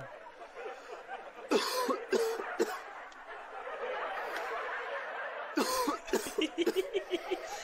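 A person coughing a few times, followed by quick bursts of laughter near the end.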